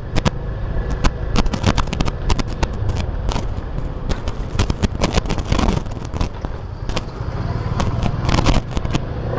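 Yamaha FZ25 motorcycle ridden slowly, its single-cylinder engine running steadily under a dense crackle and rustle on the phone's microphone.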